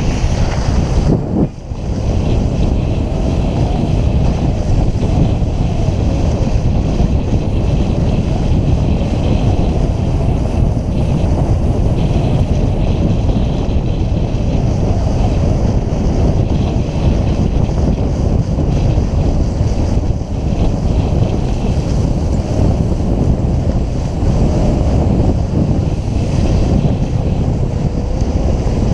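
Steady wind rumble buffeting a GoPro Hero 3+ microphone while skiing downhill, mixed with skis scraping over granular spring snow. The noise dips briefly about a second and a half in.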